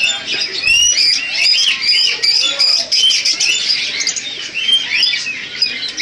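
Caged budgerigars chattering: a dense, continuous run of short chirps that bend up and down in pitch.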